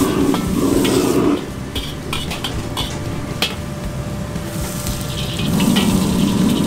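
Stir-frying in a wok over a loud gas wok burner: the burner's low rush and the sizzle of vegetables, with a metal ladle scraping and clinking. The burner noise drops about a second and a half in, leaving sizzling and sharp metal clinks, then comes back loud near the end.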